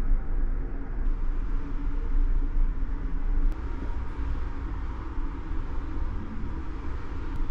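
Steady low rumble of a ferry's engines and machinery heard from inside the ship, with a few faint steady hum tones over it.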